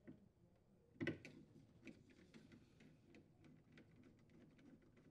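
Faint, irregular clicks and ticks of a hand screwdriver driving a screw through a plastic ice bucket glide into a refrigerator freezer liner, with one louder click about a second in.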